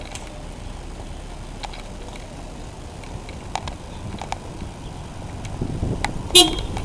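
Outdoor background noise with a few sharp, irregular clicks and knocks, and a short pitched call near the end.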